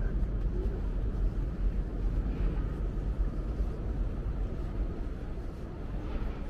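Steady low rumble of outdoor city background noise, with no distinct events, fading slightly near the end.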